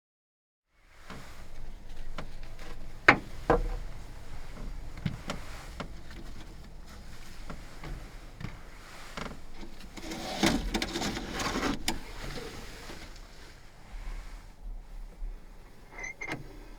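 Gear being handled and set up inside a small van: two sharp knocks about three seconds in, then scattered clicks, a spell of clattering and rustling, and a few light clicks near the end.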